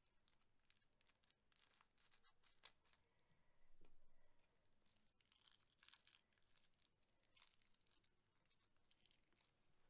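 Faint crackling, small clicks and a rustle of hands handling slime and plastic piping bags, with the loudest rustle about four seconds in.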